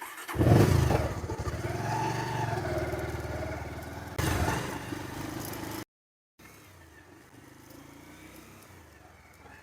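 Bajaj Pulsar 150's single-cylinder four-stroke engine running as the motorcycle is taken for a test ride on a newly fitted front chain sprocket. It swells up just after the start, gets briefly louder a little past four seconds, then cuts off suddenly about six seconds in, leaving only a faint sound.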